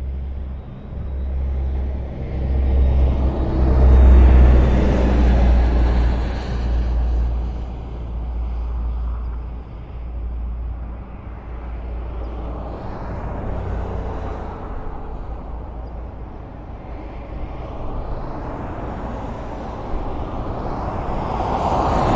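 Highway traffic: vehicles passing in a continuous rumble. A heavy low rumble swells about four seconds in and fades, and another vehicle's approach builds near the end.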